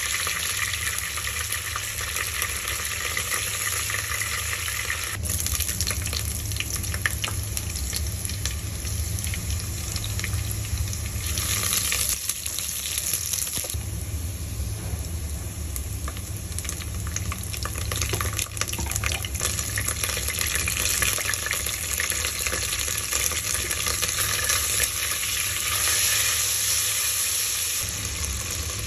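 Bay leaves, sliced onion and dried red chillies sizzling in hot oil in a non-stick pot, with a steady frying hiss. A silicone spatula stirs them now and then, adding small scraping clicks.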